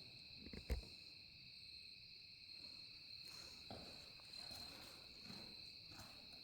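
Faint steady drone of crickets or other insects, two even high tones without a break. A single soft knock comes about three-quarters of a second in, with a few faint shuffles after.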